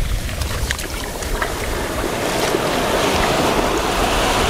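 Shallow surf washing up the sand around a landed shark, with wind buffeting the microphone. The wash thickens and grows louder from about two seconds in.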